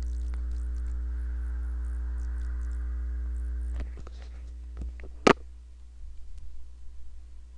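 Steady electrical hum with a row of even overtones that cuts off about four seconds in, followed by a few sharp clicks, one of them much louder, a little over five seconds in.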